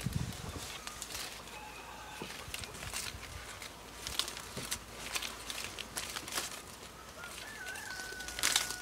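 Chickens and birds calling over scattered light clicks and rustles. Near the end a thin whistled call holds for about a second and a half.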